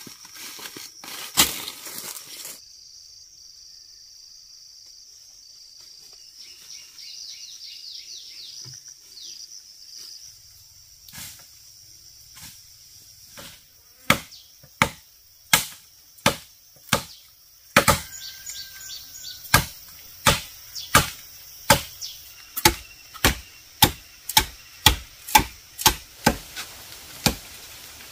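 Steady high drone of insects, with a few short chirps. About halfway in, sharp strikes of a hand tool on wood begin, about one and a half to two a second, and carry on through the rest.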